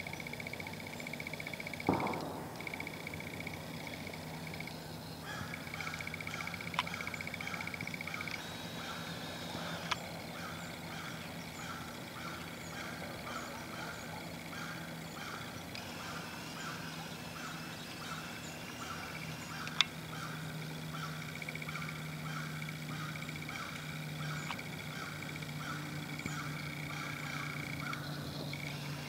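Autumn woodland ambience: a steady high trill and an evenly repeating pulsed call, about two a second, over a low steady hum, with a few sharp clicks. A louder thump comes about two seconds in.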